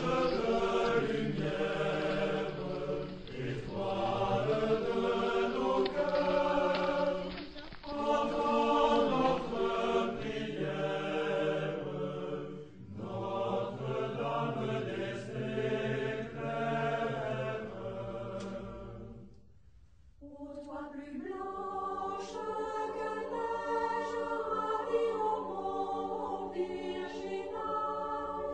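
A group of voices singing a slow, chant-like choral song in long held phrases. The singing breaks off briefly about twenty seconds in, then carries on.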